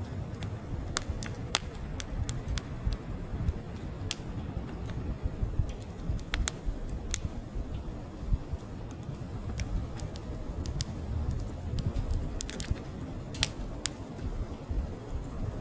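Wood fire of split logs burning, with irregular sharp crackles and pops over a steady low rumble of flame.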